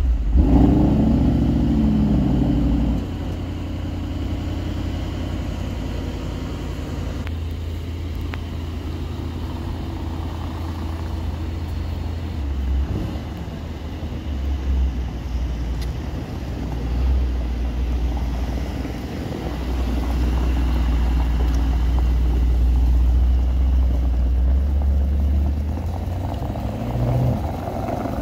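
Mercedes-AMG SL 63's 4.0-litre twin-turbo V8 just after starting: raised idle for about three seconds, dropping to a steady idle. Small swells of throttle follow, and near the end the revs rise as the car pulls away.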